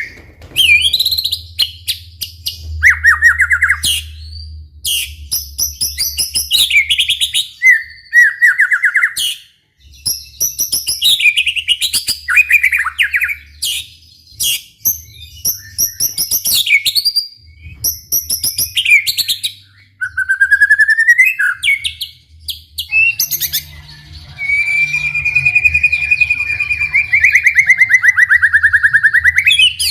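White-rumped shama singing loudly and continuously: a varied string of clear whistled phrases, rapid chattering notes and quick trills with short pauses between them. Near the end comes one long rolling trill lasting several seconds.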